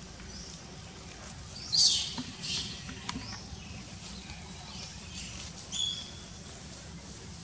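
Baby long-tailed macaque giving short, high-pitched squeaks: a loud one about two seconds in, a couple of smaller ones just after, and another near six seconds.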